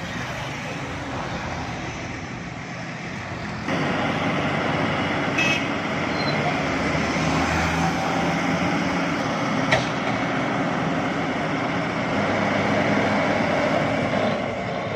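Heavy vehicle engine running steadily. It jumps louder about four seconds in, and two short sharp clicks come later.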